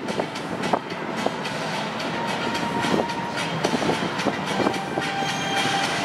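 Jet engines of a twin-engine Airbus narrowbody airliner running as it rolls along the runway: a steady whine over a rumbling, crackling noise.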